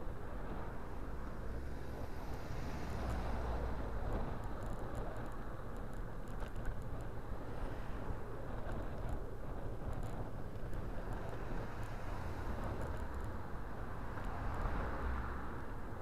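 Steady wind and road rumble on a bicycle-mounted camera while riding, with faint scattered clicks. A car passes, swelling up and fading, near the end.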